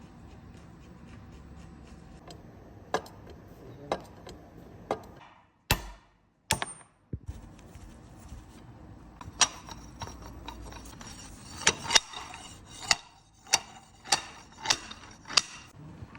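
Sharp metal clinks and knocks from bearing parts being handled: a few spaced about a second apart, then a quicker run of about one every half second with a high ringing edge.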